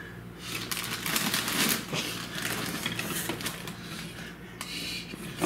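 Objects being handled and rummaged on a kitchen counter: a rapid, irregular clatter of clicks and rustles starting about half a second in, over a low steady hum.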